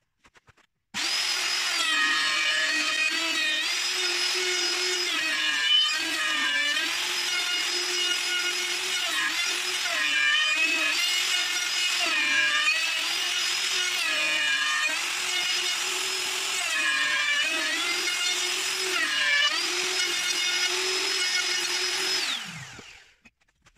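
Electric router starting up and cutting wood, its high motor whine dipping in pitch again and again as the cutter takes load, then winding down and stopping near the end.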